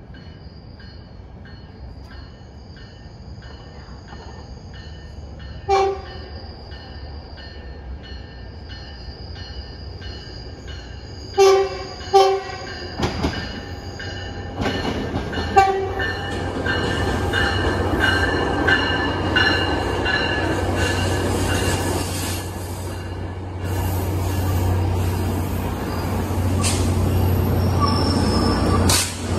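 A crossing bell dings steadily as a Tri-Rail commuter train approaches. The train's horn sounds several short blasts: one about six seconds in, a close pair around twelve seconds, and another near sixteen. The diesel locomotive and its cars then rumble in, growing louder as they pass along the platform.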